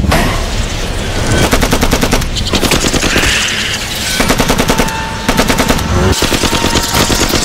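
Several bursts of rapid automatic-weapon gunfire, each a fast string of shots, separated by short gaps, over a steady low rumble: gunfire sound effects.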